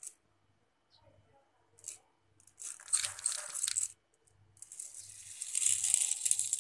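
Dry whole urad dal (black gram) being poured onto a steel plate, a rattling hiss of small grains landing in two spells, the second longer and louder.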